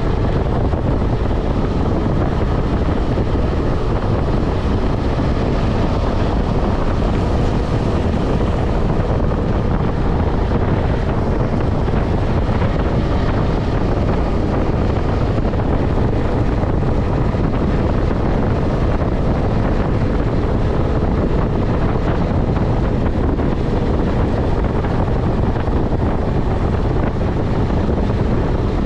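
KTM 250 Adventure's single-cylinder engine running steadily at highway speed, mixed with loud wind noise on the microphone.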